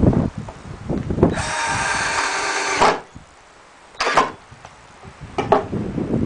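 Power drill driving a screw into pallet wood: a steady motor whine for about a second and a half that stops sharply, then a brief second burst a second later. Knocks from handling the boards come before it.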